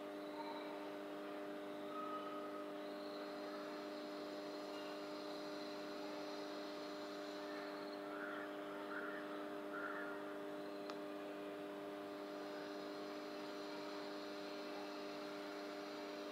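Faint steady hum made of several constant low tones, with a few faint brief sounds near the middle.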